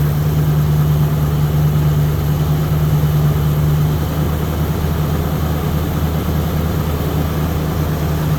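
A 1976 Ford Bronco's V8 engine idling steadily, with a slight change in its tone about four seconds in.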